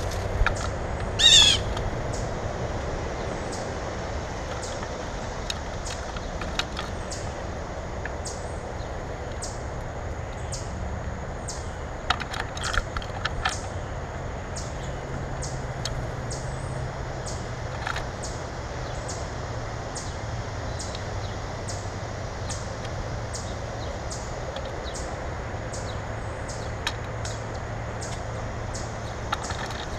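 Wild birds calling: one loud, harsh call about a second in, a quick run of sharp notes near the middle and another a few seconds later, with faint high ticks repeating steadily over a constant low rumble.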